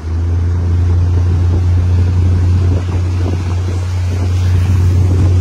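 Small motorboat under way: a loud, steady low engine drone that comes in suddenly at the start, with water rushing along the hull.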